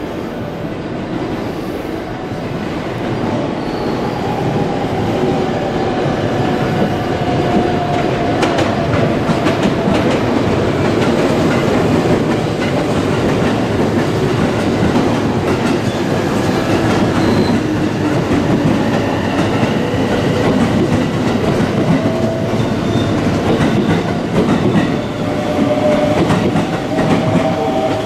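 Limited-express electric train pulling out and running past at close range, growing louder after the first few seconds. A motor whine shifts slowly in pitch over the running noise, and the wheels clack over the rail joints.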